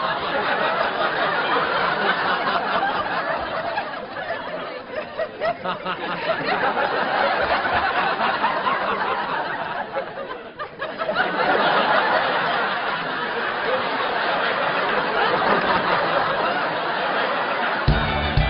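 Studio audience laughing at length; the laughter thins out about ten seconds in, then swells again. Sitcom transition music starts right at the end.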